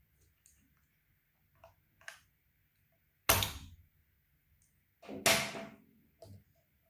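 A few light clicks, then two loud sharp knocks about two seconds apart, each dying away over about half a second.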